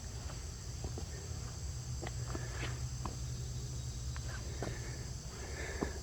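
Footsteps on dry creek-bed rock, a dozen or so scattered sharp taps and scuffs, over a steady high chirring of crickets.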